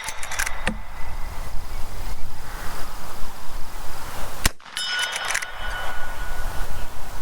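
A single .38 Special shot from a Marlin 1894 lever-action rifle about four and a half seconds in, followed by a metallic ringing clang that lasts about a second and a half. In the first second there are a few sharp metallic clicks, as of the lever being worked.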